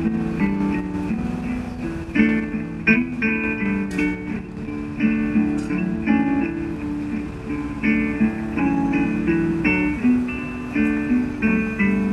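Background music: a guitar playing a melody of plucked notes.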